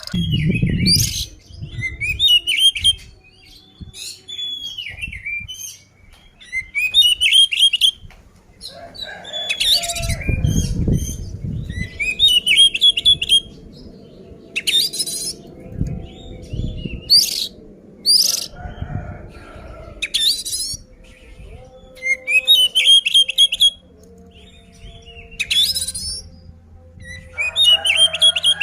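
Oriental magpie-robin (kacer) singing loud, varied whistled and warbled phrases in short bursts every second or two: the full, agitated 'fighting' song that bird keepers use to provoke other magpie-robins. Low rumbling thuds sound at a few moments.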